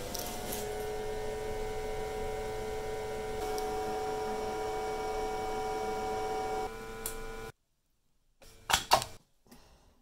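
Cooling fan of a homemade microwave-transformer spot welder spinning up at switch-on: its whine rises briefly, then holds steady with a soft rush of air. It cuts off suddenly about seven and a half seconds in, and a few sharp clicks follow near the end.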